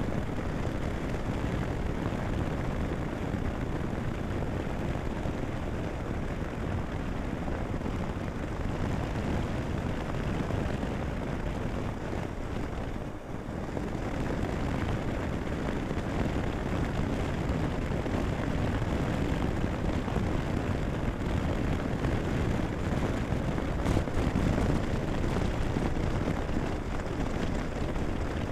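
Honda Biz 105 step-through motorcycle cruising on asphalt: steady engine, tyre and wind rush on the handlebar-mounted camera. The level dips briefly about halfway through.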